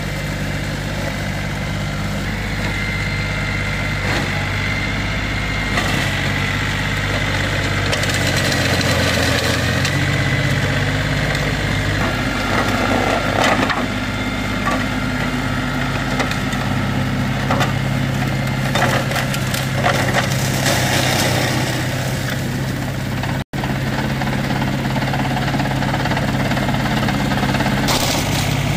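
Mahindra OJA 2130 4WD tractor's diesel engine running steadily under load, driving a Shaktiman mini mulcher. Bursts of crackling several times as the mulcher's flails shred dry coconut fronds, with a brief dropout about two-thirds through.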